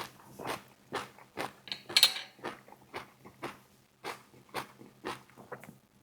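Close-up chewing of crispy fried chicken wings, a steady run of crunchy bites and chews about two a second, with one loud crunch about two seconds in.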